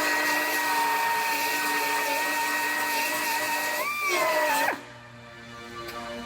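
High-speed power tool cutting into the car's sheet-metal rear body panel with a steady high whine. About four seconds in the pitch rises briefly, then the tool shuts off and winds down.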